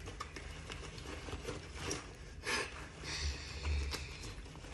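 Handling noise from a fabric backpack being worked open: short bursts of cloth rustling, the strongest about halfway through, with a dull low bump just after.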